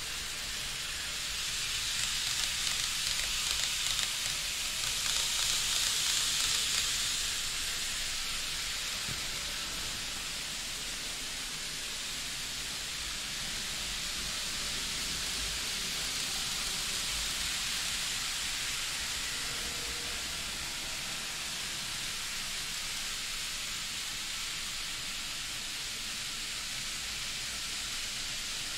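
N gauge model trains running on the layout's track: a steady hiss with a low rumble underneath, louder for a few seconds near the start as a train passes close.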